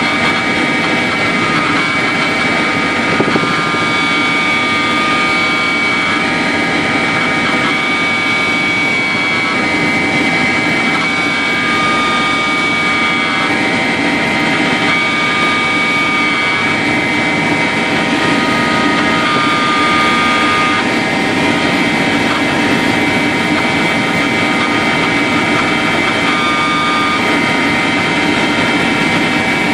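Helicopter in flight, heard from inside the cabin: a steady drone of engine and rotor with a constant high whine over it.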